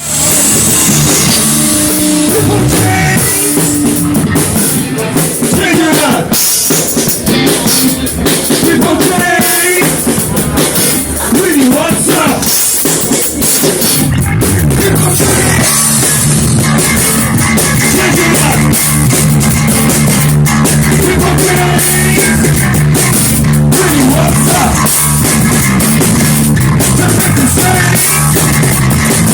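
Loud live rock band playing, with drum kit and guitars, settling into steadier held chords about halfway through.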